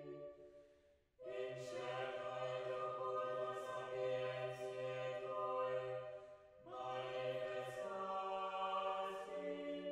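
A choir singing slow, held chords. The singing comes in about a second in and pauses briefly a little past halfway before the next phrase begins.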